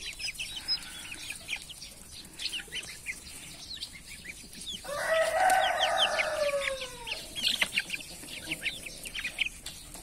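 A flock of young chicks and goslings peeping constantly in short, high chirps. Around the middle a rooster crows once, for about two and a half seconds, dropping in pitch at the end.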